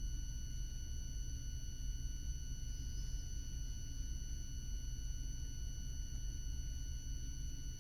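Quiet room tone: a steady high-pitched electronic whine made of several even tones, over a low rumble.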